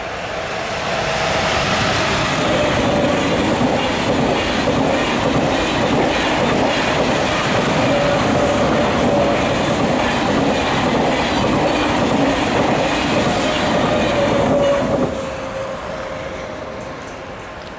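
Two coupled double-deck TGV trainsets passing at speed. A steady rumble of wheels on rail with a rhythmic clatter and a steady hum grows loud about a second in, holds, then falls away sharply about 15 seconds in as the last cars go by.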